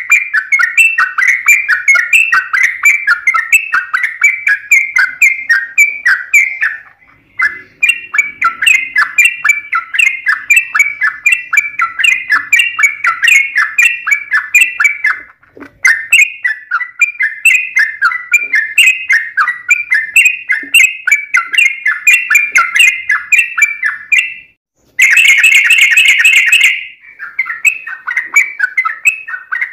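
Yellow-vented bulbul (trucukan) song: fast, chattering runs of rapidly repeated notes in long unbroken phrases, with brief pauses about 7, 15 and 24 seconds in. About 25 seconds in comes a louder, harsher two-second stretch.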